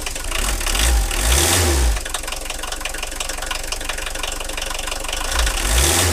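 Engine running and revved twice, rising and falling back, about a second in and again near the end.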